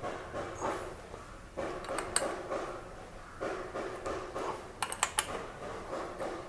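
A spanner and metal parts of a Royal Enfield's air filter box clinking while the filter and cover are put back and bolted up. There are sharp clicks about two seconds in and a cluster around five seconds in, between stretches of handling noise.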